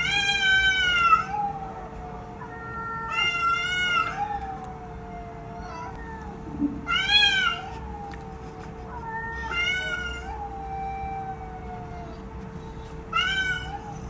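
Cat meowing repeatedly: five loud, high meows, each rising then falling in pitch, about every three seconds, with fainter, lower-pitched meows in between.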